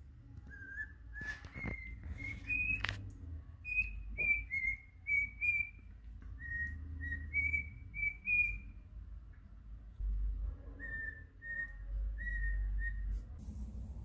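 Whistling: a run of about a dozen short, clear whistled notes that step up in pitch over the first few seconds and then hold level. After a pause come four lower notes near the end. A few sharp clicks sound in the first three seconds, over a low rumble.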